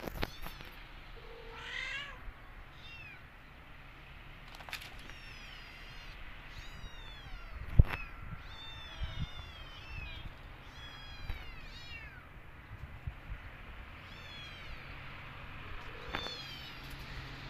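Kittens mewing over and over in short, high-pitched calls that fall in pitch, coming in quick runs. There is a single sharp knock about eight seconds in.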